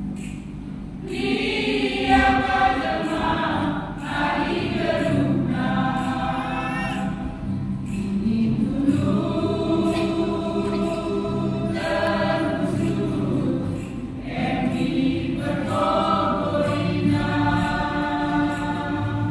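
Church choir singing a praise song in harmony, in held phrases with short breaks between them.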